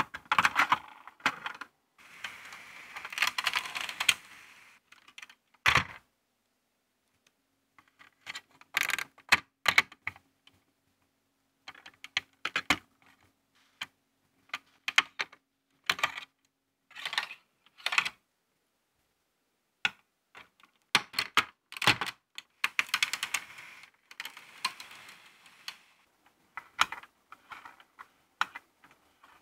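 LEGO Technic plastic parts clicking, clattering and snapping as they are handled and fitted together, in separate bursts of taps with short quiet gaps between them.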